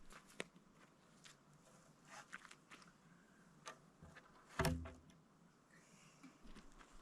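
Faint scattered clicks and taps from handling framing lumber and tools, with one louder knock about four and a half seconds in.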